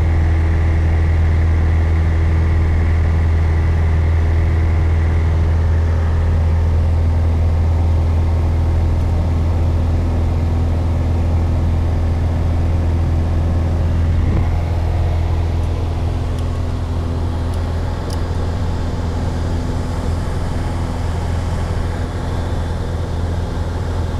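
Piper PA-28-151 Warrior's four-cylinder Lycoming engine and two-blade propeller droning steadily in cruise, heard from inside the cabin as a deep, even hum.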